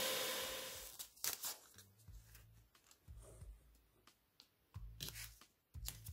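A belt sander's noise dying away over the first second as it runs down, then masking tape pulled off the roll in several short rips and pressed onto a board.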